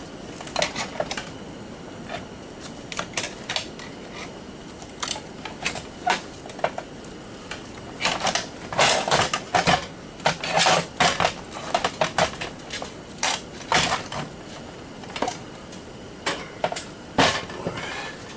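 Irregular metallic clicks, clinks and knocks of hand tools and loose metal parts as a garage door opener is dismantled, busiest in the middle of the stretch.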